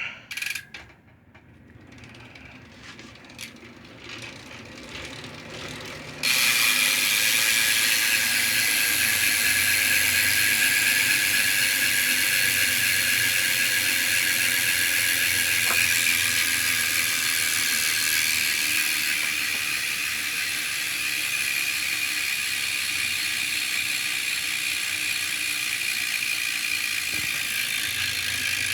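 BMX rear cassette hub freewheeling, a Circus Monkey 9-tooth driver with 4 pawls. A few quieter clicks come first, then about six seconds in the wheel is spun hard and the pawls click so fast they merge into a loud, steady buzz that eases off slightly later on. The owner calls it still smooth after six years with no servicing.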